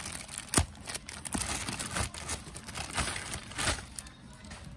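Thin plastic courier bag rustling and crinkling as a plastic-wrapped parcel of books is worked out of it by hand, in irregular bursts, the loudest a sharp crackle about half a second in.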